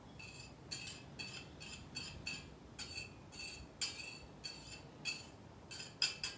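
Wire whisk tapping and scraping a small plate: a run of light, high clinks, about two or three a second and quicker near the end, as the baking powder and baking soda are knocked off into the strainer.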